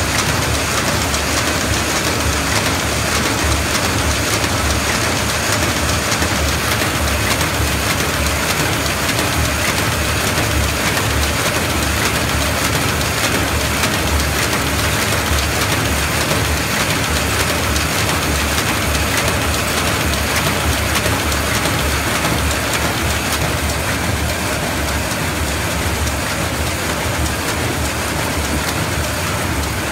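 Zono ZD-F450 square-bottom paper bag machine running: a steady, dense mechanical clatter from its rollers and folding mechanism, with a fast low pulse underneath.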